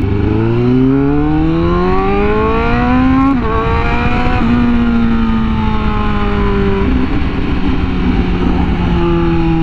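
Superbike engine accelerating, its pitch climbing for about three seconds, then two quick upshifts a second apart, after which it holds a steady, slowly sinking note.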